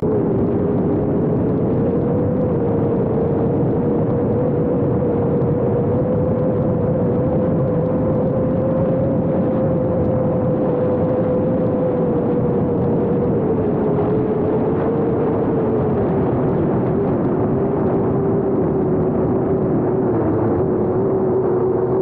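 Parrot Bebop 2 quadcopter's propellers and motors whining steadily in flight, heard close up from the camera mounted on the drone, with a rushing noise underneath. The pitch drifts with the throttle and sits a little lower from about 14 seconds in.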